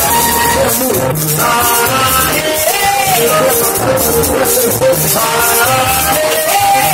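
A live Latin dance band playing: sung vocals over congas, a bass line and a quick, even shaker-like rattle.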